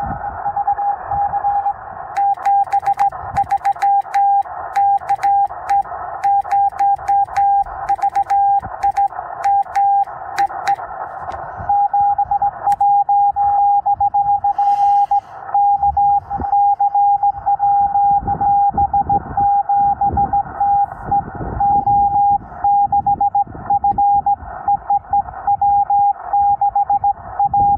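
Morse code on 20 meters: a single tone near 800 Hz keyed in dots and dashes from a Yaesu FT-891 transceiver's speaker, over steady band hiss. In roughly the first half, sharp mechanical clicks run in time with the keying, from a straight key being worked.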